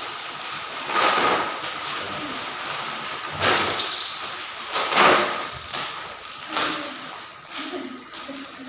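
Lay's potato chips being eaten fast from their packets: irregular crunching and crinkling, with louder bursts about a second in, at three and a half seconds and at five seconds, then smaller ones.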